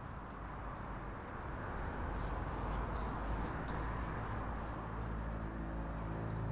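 Steady outdoor background noise with a low hum, a few faint clicks in the middle. Near the end a low, sustained music score swells in.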